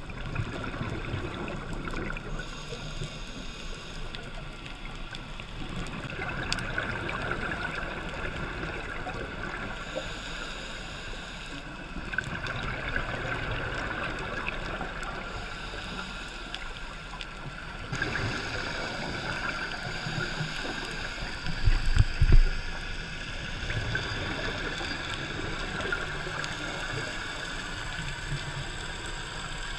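Underwater sound heard through a GoPro's waterproof housing: a scuba diver's exhaled bubbles gurgling out of the regulator every few seconds, over a steady muffled hiss of water. A few low thumps about three-quarters of the way in are the loudest sound.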